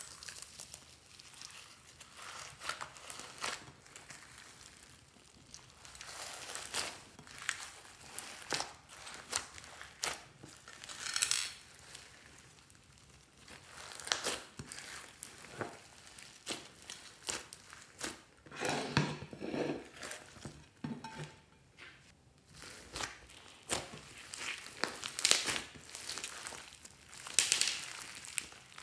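Hands squeezing, folding and stretching glossy slime packed with beads and clay, making a steady run of irregular sticky crackles, pops and squelches.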